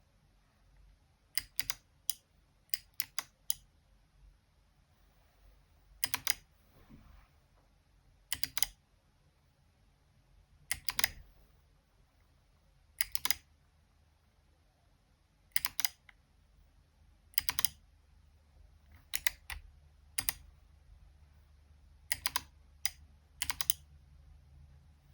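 Mechanical keyboard with Kailh Box Summer clicky switches being typed on, a Xinmeng X75. The key presses come singly and in short quick runs of clicks, with pauses of a second or two between them.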